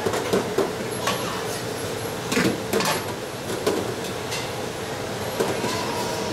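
Busy wok cooking station: a steady hum with a constant low tone, broken by scattered sharp clinks and knocks of metal ladles and spatulas against steel woks.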